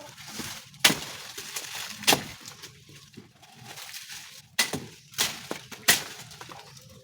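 Sharp clinks and knocks of hard objects striking, five in all, some with a short ringing tail.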